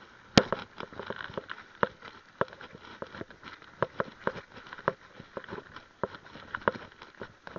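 Mountain bike rattling and knocking over a rough dirt trail: irregular sharp knocks and clatters from the bike, with the loudest knock about half a second in, over a light hiss of tyres on the ground.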